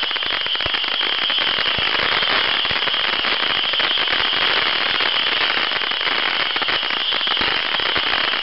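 Ground firework fountain spraying sparks: a steady hiss with dense, rapid crackling and no let-up.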